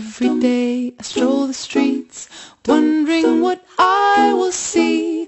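Background music: a song with a woman singing over light instrumental backing.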